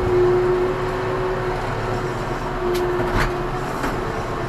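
Ursus C-392 tractor engine running steadily, with an even hum.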